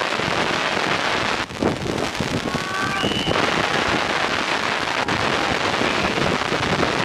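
Steady rushing wind noise on the microphone, with a brief faint high tone about three seconds in.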